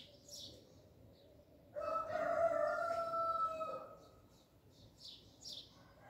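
A rooster crows once, a single call of about two seconds starting nearly two seconds in. Small birds chirp briefly before and after it.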